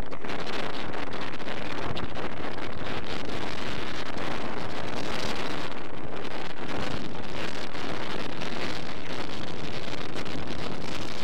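Loud, steady wind noise from the car window buffeting the microphone of a phone filming from a moving car, drowning out everything else.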